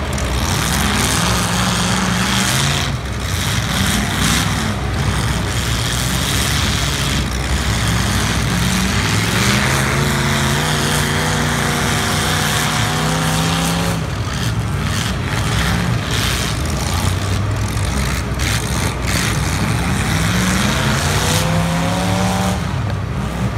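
Several demolition derby cars' engines revving hard at once, pitch climbing and falling in repeated surges as the drivers accelerate and back up.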